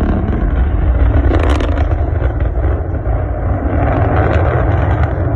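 Rocket engine noise during a launch: a loud, steady low rumble.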